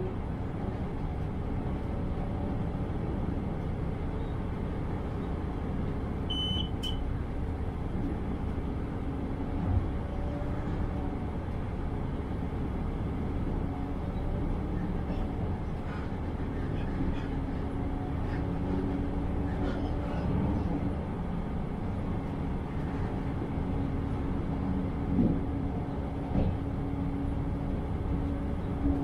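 Regional train running along the track, heard from the driver's cab: a steady rumble of wheels on rail with a low hum from the drive, and a short electronic beep about six seconds in.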